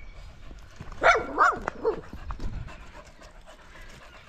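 A Shih Tzu and a cockapoo play-fighting, with a quick run of short, high yips and lower grumbles that bend up and down in pitch, between about one and two seconds in.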